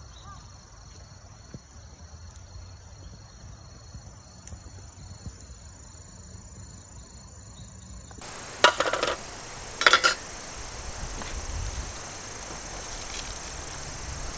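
Faint, evenly repeating cricket chirping for the first eight seconds. Then the background changes and two short rustling clatters come about nine and ten seconds in.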